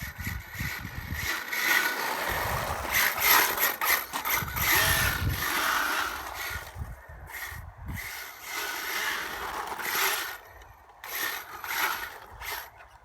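HPI WR8 Flux RC rally car's brushless electric motor whining, its pitch rising and falling several times as it speeds up and slows, with tyre hiss on a wet road.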